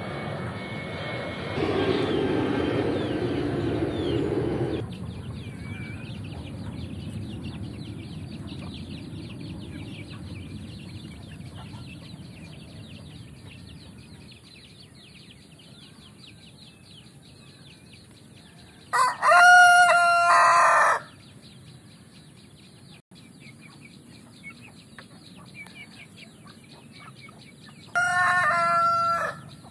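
Ayam Bangkok (Thai game fowl) rooster crowing twice: a crow about two seconds long about two-thirds of the way in, and a shorter one near the end. Early on there is a steady rushing noise lasting about three seconds.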